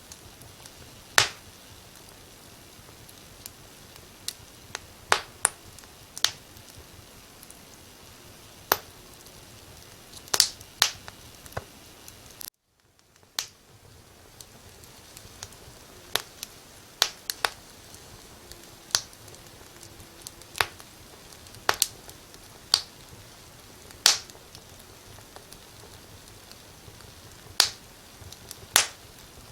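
Wood fire crackling: irregular sharp pops over a steady hiss. The sound cuts out for a moment about twelve seconds in and fades back up.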